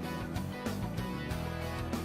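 Background music with a guitar and a steady beat.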